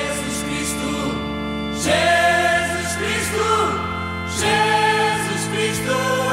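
Slow religious music with singing voices over held chords, changing chord about every two and a half seconds.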